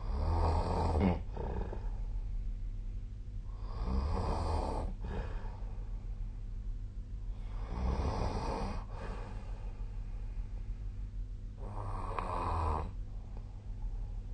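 A person snoring in their sleep: four snores about four seconds apart, each lasting about a second, over a steady low hum.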